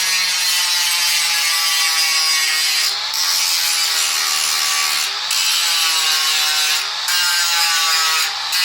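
Steel file rasping across the welded joint of a band saw blade in long strokes, with a short break about every two seconds. A ringing tone from the blade slides down in pitch during each stroke.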